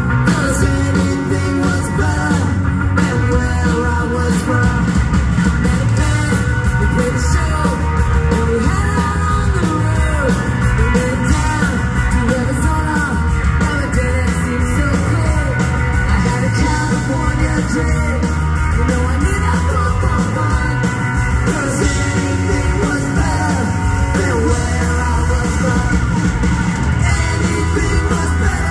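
Ska-punk band playing live, a woman singing lead over electric guitar, bass guitar and drums, loud and steady, as heard from the audience.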